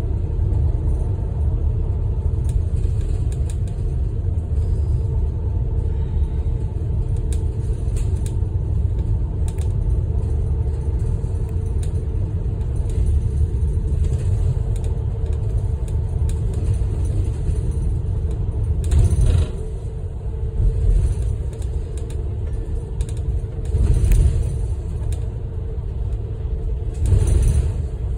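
Steady low road and engine rumble inside a bus cruising on an expressway. A few louder surges of rumble and rattle come about two-thirds of the way through and again near the end.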